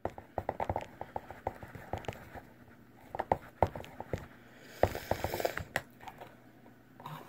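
Thickening glue slime being stirred and worked: a run of irregular sticky clicks and squelches, with a denser stretch about five seconds in.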